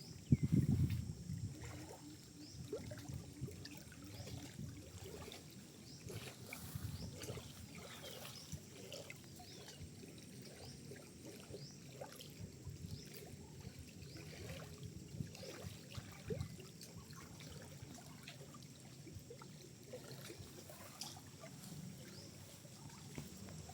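Shallow water trickling and dribbling over stones, with a louder low thump about a second in.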